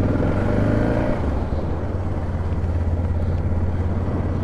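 Suzuki DR650's single-cylinder four-stroke engine pulling away, rising in pitch for about the first second, then running steadily under way with wind and road noise.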